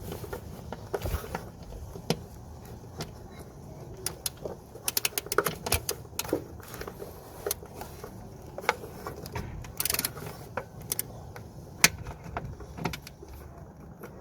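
Wrench loosening 10 mm bolts on a car's clutch cable clamp: irregular sharp metallic clicks and ticks, with quick runs of clicks about a third of the way in and again past the middle.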